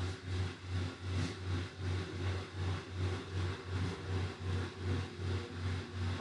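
A low machine hum pulsing evenly about three times a second, over a faint hiss.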